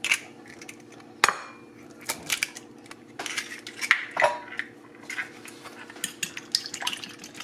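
An egg is cracked open with a sharp tap about a second in, followed by light clinks and taps on a ceramic plate. Near the end a fork clinks and scrapes against the plate as two raw eggs start to be beaten.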